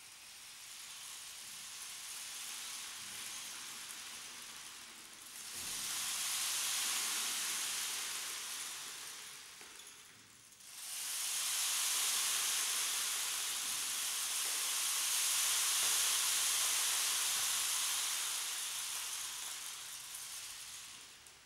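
Long rain stick tipped end over end, its filling trickling down the tube in a dense rain-like rush that swells and fades with each turn. There are three pours: one already running that fades about five seconds in, a second of about five seconds, and a last one of about ten seconds.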